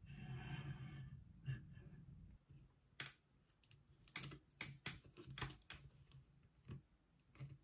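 Sharp plastic clicks from a Spider-Man action figure's jointed arm being moved by hand, about a dozen at an uneven pace, after a couple of seconds of soft handling rustle.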